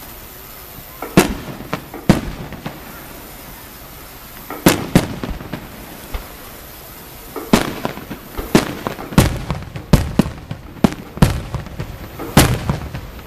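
Aerial firework shells bursting, a string of sharp bangs each with an echoing tail. A few come in the first half, then they come in quick succession, roughly one a second or faster, over the last six seconds.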